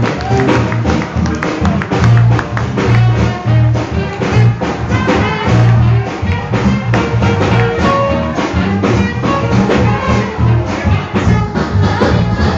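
Live band playing instrumental jazz with no singing: drums keeping a steady beat over a strong bass line, with brass horns.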